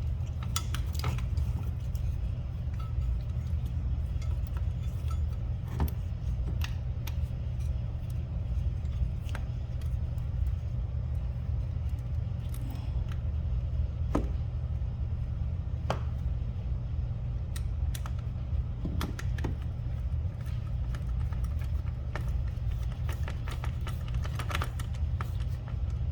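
Scattered small metal clicks and clinks of bolts, washers and tools being handled while fitting hardware, over a steady low hum.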